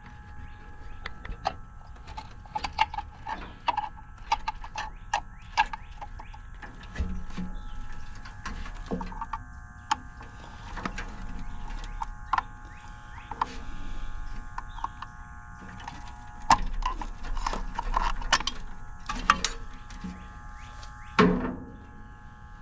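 Irregular clicks and knocks of handling work, over a faint steady hum.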